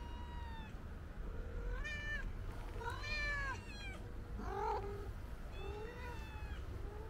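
Cats meowing repeatedly, about six separate meows, each rising and falling in pitch; the one near the middle is rougher and lower.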